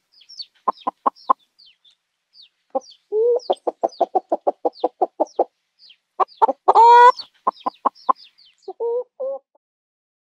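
Chickens clucking in quick runs of short clucks, with one loud, wavering squawk about two-thirds of the way through and two short calls near the end before it stops. Faint high chirps sound behind the clucks.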